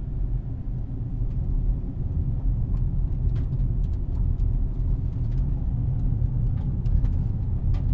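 Steady low rumble of a car driving, heard from inside the cabin, with a few faint scattered clicks.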